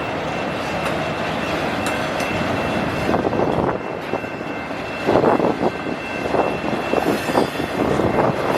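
Autorack freight cars of a train rolling past: a steady rumble of wheels on rail, with clattering that grows louder about three seconds in and again about five seconds in.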